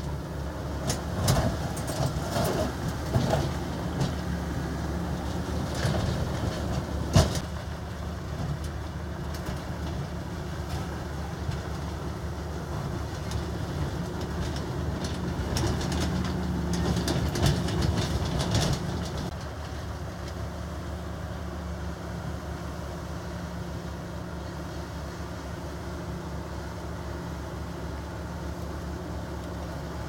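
Heavy diesel earthmoving machinery running, with metallic clanks and knocks over the first few seconds and one sharp bang about seven seconds in. It is louder for a stretch, then about two-thirds of the way through settles into a steady, quieter engine drone.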